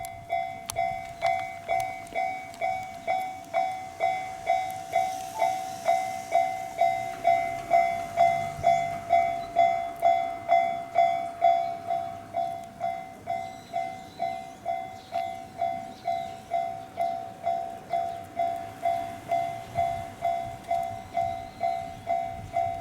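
Japanese railway level-crossing warning bell ringing steadily at about two and a half dings a second, the signal that a train is approaching and the crossing is closed.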